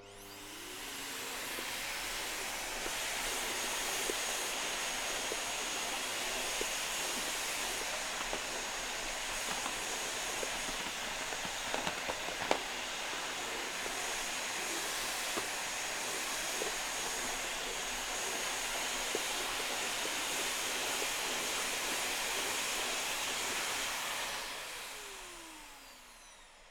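Vacuum cleaner switched on, its motor coming up to speed and running steadily with a high whine over the rush of air, with a few light clicks midway. Near the end it is switched off and winds down, falling in pitch.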